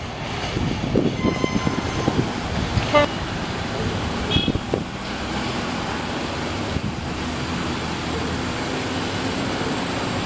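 Street traffic noise with a few short horn toots in the first five seconds.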